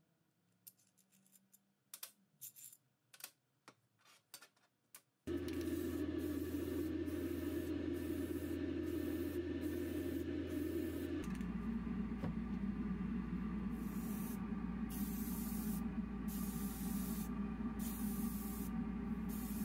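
A few light clicks of handling, then a motor starts abruptly and runs steadily while a hiss of air starts and stops in short bursts, each lasting about half a second to a second. Partway through, the motor's hum drops lower.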